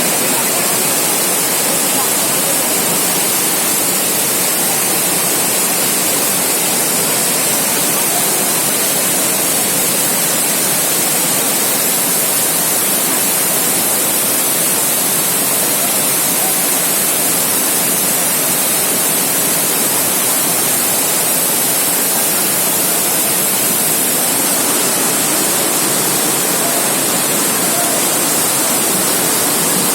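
Rain falling steadily: a loud, even hiss with no letup.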